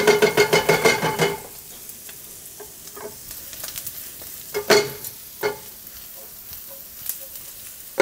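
Sliced onions sizzling in brown butter in a frying pan. For about the first second and a half a wooden spatula stirs and scrapes them in quick strokes, then the pan settles to a steady sizzle, with a couple of short knocks around the middle.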